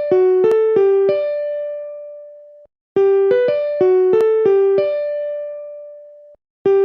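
Social-media notification jingle: a quick run of about seven bright electric-piano-like notes ending on one held note that fades, played over again every three and a half seconds or so.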